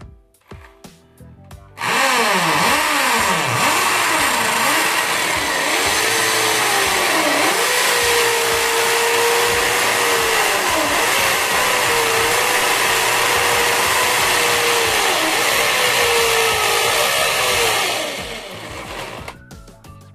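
Electric drill with a 10 mm bit boring into a masonry wall. The motor starts about two seconds in, its pitch sagging and recovering several times as the bit bites, then running fairly steady under load before winding down near the end.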